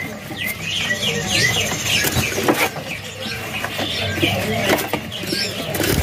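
Many caged small songbirds chirping and twittering over one another in short, quick calls, with a few sharp knocks among them.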